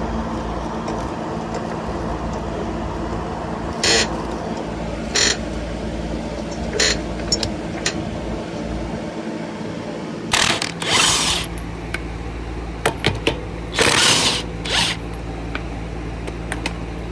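Short mechanical rattles and clicks from tools being handled, several separate bursts of about half a second to a second each, over a steady low hum.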